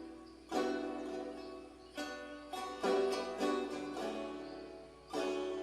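Background music: plucked string instrument, guitar-like, playing notes that ring and fade.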